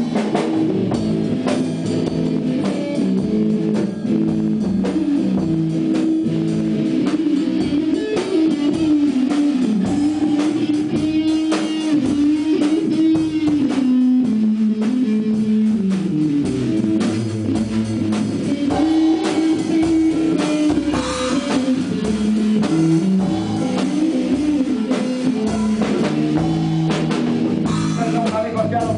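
Live blues-rock band in an instrumental break: an electric guitar plays a lead line that bends and slides in pitch over a drum kit and bass.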